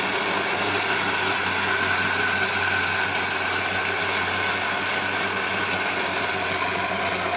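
Electric mixer grinder's motor running at a steady high speed with a low hum, switched on suddenly.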